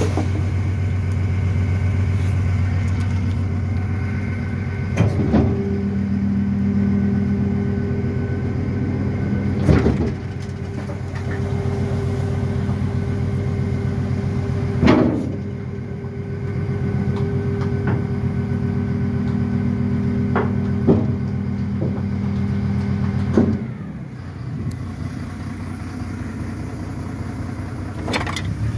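Mercedes-Benz Econic garbage truck's diesel engine running steadily, its pitch stepping up for several seconds at a time. Sharp metallic knocks from the rear loader come about every five seconds.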